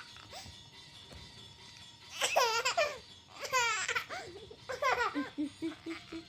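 A baby laughing: three peals of rapid, high-pitched laughter, the first starting about two seconds in.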